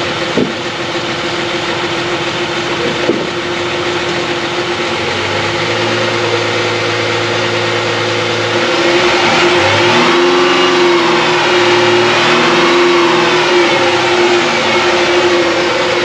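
Chrysler 300's engine idling steadily, its transmission freshly refilled with ATF. A couple of light clicks come in the first few seconds. About halfway through, the engine speed rises and falls for several seconds.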